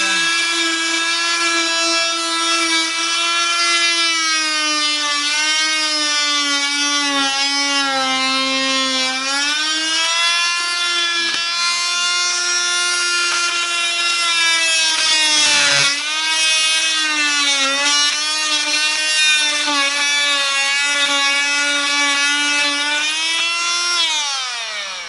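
Oscillating multi-tool with a bimetal blade running as it cuts through wood and nails inside a wall: a steady high whine whose pitch sags a few times under the cut. Near the end it winds down, the pitch falling, and stops.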